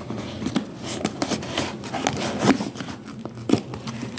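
A parcel's packaging being torn and pulled open by hand, with irregular crackles, rustling and scraping.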